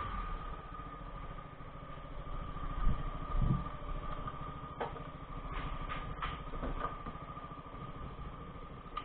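Motor scooter engine idling steadily. A couple of thumps about three seconds in and several sharp clicks a little later come from the camera being handled.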